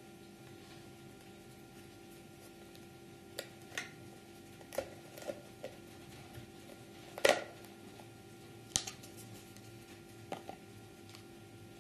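Hard pieces of a 22-part skull model being handled: about ten irregular light clicks and knocks as parts meet or are set down, the sharpest about seven seconds in. A steady faint hum runs underneath.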